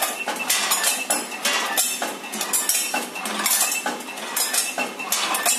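Multihead weigher counting out candies one piece at a time: pieces of candy clatter and clink through the machine's pans and hoppers in a dense, irregular run of sharp clicks.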